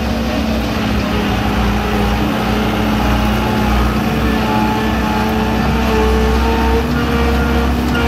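Skid steer engine running steadily, heard from the operator's seat, as the machine drives carrying round hay bales; a steady whine sits over the low engine rumble.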